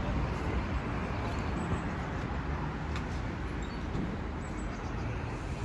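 Steady street background noise with a low rumble and an even hiss.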